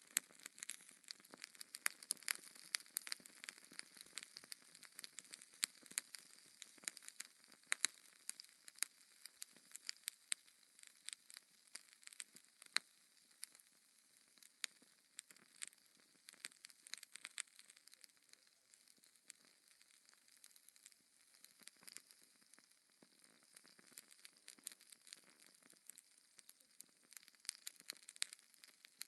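Wood fire in a fireplace crackling, with irregular sharp pops and snaps over a faint hiss.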